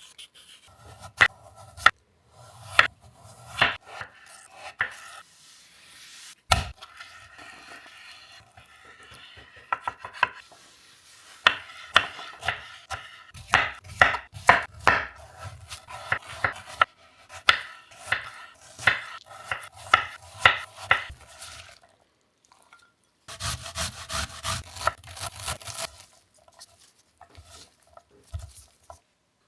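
Knife chopping vegetables on a wooden cutting board: runs of sharp knocks, about two a second at their busiest, with a few seconds of dense, rapid cutting noise near the end.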